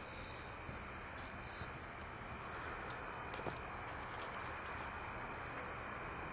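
A cricket trilling: one steady, high, finely pulsed tone, with a brief hitch about three and a half seconds in, over a low background hiss.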